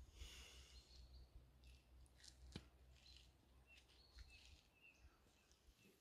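Near silence: faint outdoor ambience with a low rumble and a few short, high bird chirps scattered through it, plus a couple of soft clicks around the middle.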